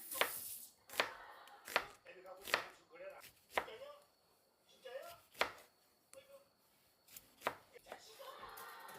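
A kitchen knife chopping on a cutting board: about seven sharp strokes at an uneven pace.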